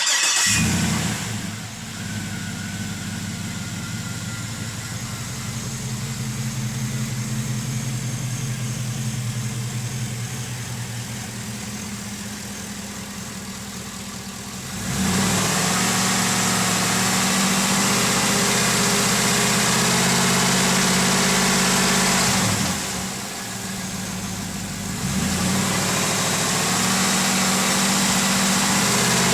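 Chevrolet TrailBlazer SS's LS2 V8 firing up and flaring, then settling to a steady idle with a lifter tick. About halfway through it is held at a raised engine speed, drops back briefly, and rises again.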